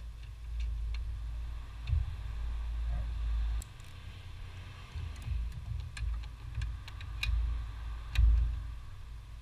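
Light metallic clicks and ticks of a wrench working a steel brake line nut on the brake master cylinder, most of them in the second half, with a few dull handling bumps.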